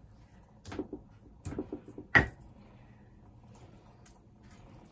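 A few short knocks and clatters of stone, the loudest a sharp clack about two seconds in, as the stone grinding roller is set down on the stone grinding slab.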